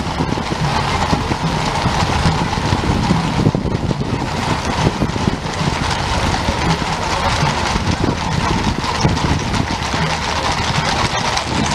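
Hooves of a large mounted cavalry escort clattering on cobbled pavement, mixed with the engines of a police motorcycle and motorcade cars driving past.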